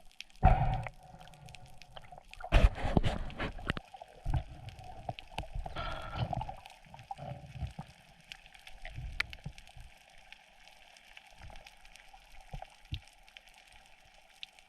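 Underwater sound picked up by a diving camera: water gurgling and sloshing in several surges over the first seven seconds, then quieter, with scattered sharp clicks.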